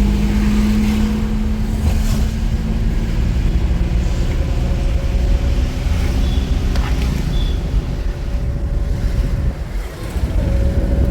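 A vehicle on the move: steady engine hum and road rumble.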